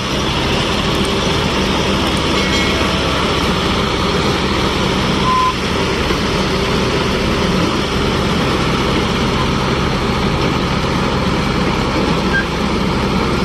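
Diesel engines of two tractors running steadily under load, a Swaraj 843 XM three-cylinder hauling a loaded sand trolley while a chained tow tractor pulls it, with the tyres churning through shallow water.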